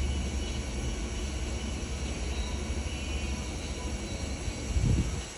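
Kent USA KTM-4VKF CNC vertical milling machine cutting a circular pocket: the inverter-driven spindle and end mill run with a steady machining hum and hiss. A brief low thump comes about five seconds in, after which the sound gets quieter.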